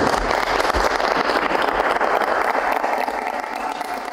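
Applause from a small group of people clapping their hands, easing off slightly near the end.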